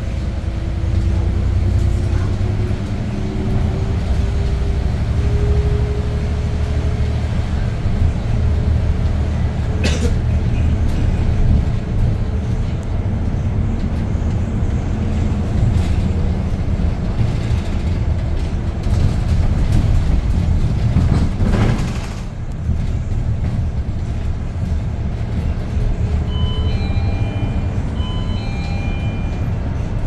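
Cabin sound of a Hyundai New Super Aero City city bus under way: its CNG engine and the road rumble run steadily, with a whine rising in pitch over the first several seconds as the bus speeds up. There is a sharp click about a third of the way in and a brief whoosh about two-thirds in.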